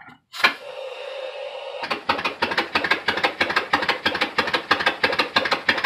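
An air hose clicks onto the fitting of a homemade compressed-air engine, air hisses for about a second and a half, then the engine starts and runs with a rapid, even train of exhaust puffs on about 30 psi of shop air.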